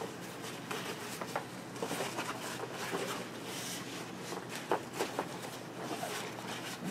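Nylon fabric of a backpack rustling and scraping as it is handled and turned over, with a few faint clicks.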